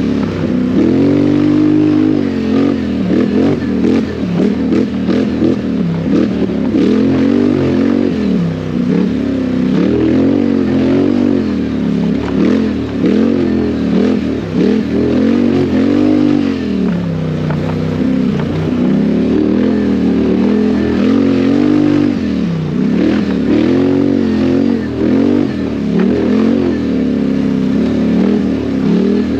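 Quad ATV engine being ridden hard, its pitch rising and falling every few seconds as the throttle is opened and closed.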